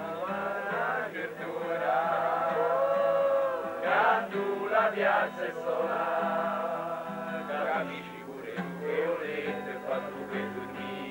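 Music with singing, male voices prominent, over a steady low hum.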